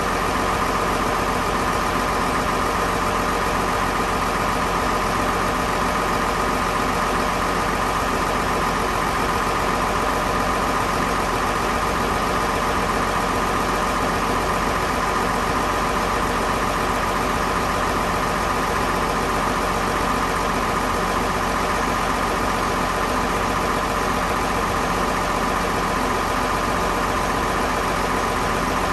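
Gardner 6LXB straight-six diesel engine of a 100 kVA generator set running steadily at constant speed.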